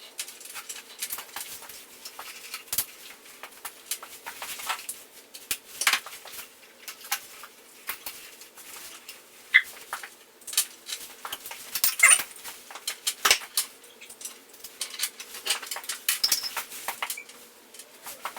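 Irregular light clicks, taps and scrapes of tools and small metal parts being handled during disassembly of a dirt bike.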